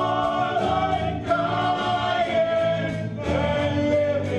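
A choir singing, with held notes changing about once a second over a steady beat.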